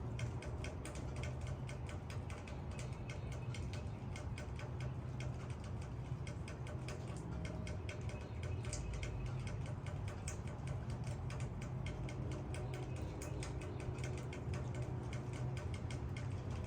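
Raindrops hitting leaves: a dense, irregular stream of small ticks over a steady low rumble.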